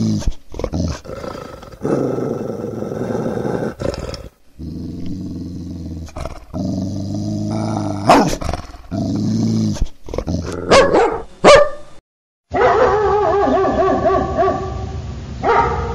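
Dogs growling and barking in a string of spliced recordings: long growls broken by sharp single barks, then a short dropout about twelve seconds in before a different recording with a wavering, higher-pitched dog vocalization.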